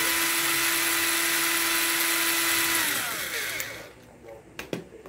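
Black & Decker cordless drill running steadily as it drills a hole through a metal car key blade; about three seconds in the trigger is released and the motor winds down with a falling whine. Two sharp clicks follow near the end.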